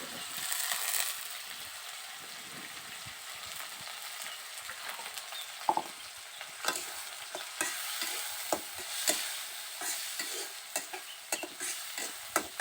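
Onions, garlic and green chillies sizzling in hot oil, with a spatula stirring and knocking against the pan in sharp, irregular clicks from about halfway through.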